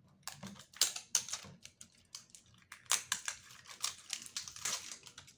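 Plastic wrapping of an L.O.L. Surprise ball being pulled open by hand along its tear strip: a run of sharp crinkles and crackles, busiest about a second in and again from about three to five seconds in.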